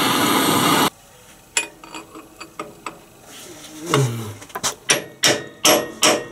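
A steady, loud blowing noise from a tool heating the seized differential drain plug cuts off abruptly about a second in. Scattered tool clicks follow, then near the end a quick run of sharp metallic clicks, about three a second, as the plug is worked loose.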